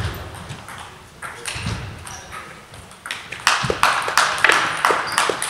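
Table tennis ball being hit back and forth in a rally: a quick run of sharp ticks as the ball strikes bats and table, starting about three and a half seconds in, with fainter ticks from other tables before that.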